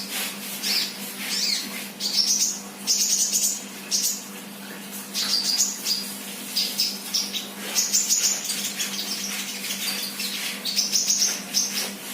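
Young sunbird (Indonesian 'kolibri') chirping: bursts of thin, high chirps and short trills every second or so. A steady low electrical hum runs underneath.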